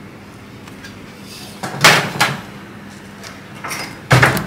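Handling noise from bench work: two short, loud bursts of knocks and clatter, about two seconds in and again near the end, as tools and parts are moved against the opened laptop, over a steady low hum.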